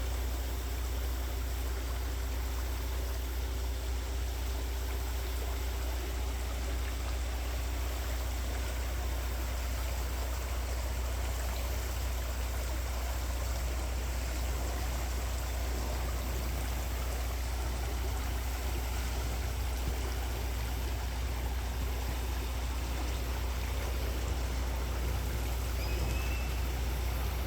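River water flowing steadily, an even rush of running water with a constant low rumble beneath it.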